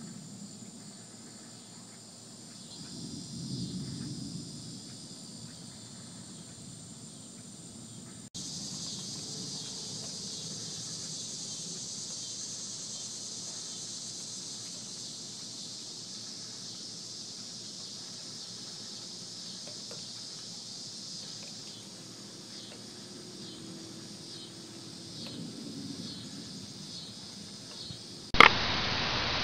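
Insects chirping steadily in a high, even trill, with a brief low rumble about three seconds in. Near the end a sudden click, then a loud steady hiss.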